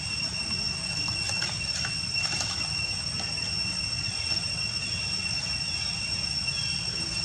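Outdoor ambience: a steady high-pitched whine over a low rumble of noise, with a few faint rustles between about one and two and a half seconds in.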